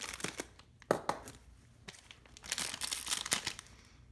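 Holographic foil packet crinkling as it is handled and opened, in irregular bursts of sharp crackles with quieter gaps between.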